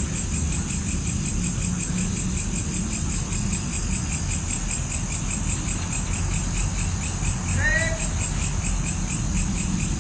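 Crickets or other night insects chirping in a steady, rapid pulsing chorus, over a low rumble of wind or handling noise on the microphone. A short, arching pitched call cuts in once, near the end.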